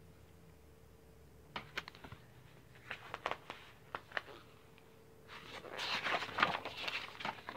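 Paper picture book being handled and its pages turned: a few light clicks and taps, then a louder rustling of paper over the last two seconds.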